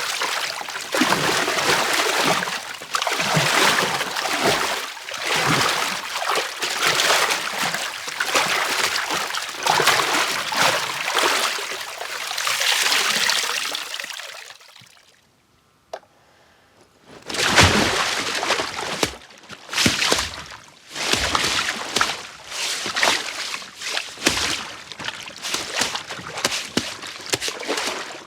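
Foley water sloshing and splashing in repeated swishes, performed for a character who has fallen through ice and struggles in the water. It fades out about halfway through, pauses for a couple of seconds, then starts again with sharper splashes.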